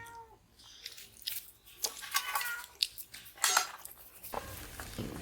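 Scattered sharp clicks and clinks of plates and utensils being handled during a meal, with a few short faint pitched sounds among them.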